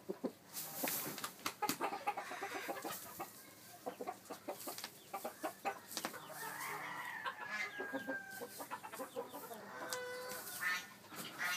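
Rooster clucking as it pecks and scratches in dry straw, with frequent short clicks and rustles; a longer drawn-out call sounds partway through.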